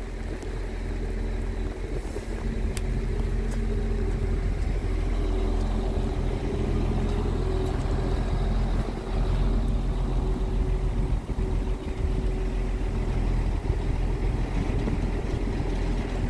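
Scania R truck's diesel engine running steadily to drive the hydraulics of its truck-mounted loader crane as the boom moves, a steady hum that grows louder over the first few seconds.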